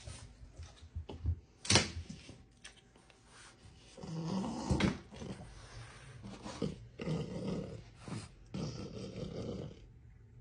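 French bulldog puppy making low vocal sounds in three or four drawn-out bouts of about a second each, starting about four seconds in. A sharp knock comes shortly before two seconds in.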